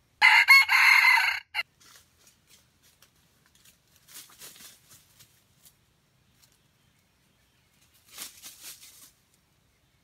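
Red junglefowl rooster crowing once, a short loud crow in the first second and a half. Faint rustles in dry leaf litter follow, around four and again around eight seconds in.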